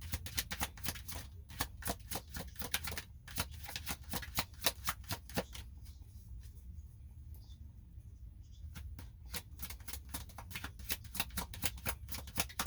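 A deck of tarot cards being shuffled by hand: quick runs of papery clicks, thinning out about halfway through and picking up again near the end.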